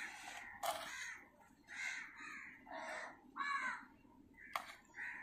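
Crows cawing, several short caws spaced about a second apart, with a couple of sharp clicks among them.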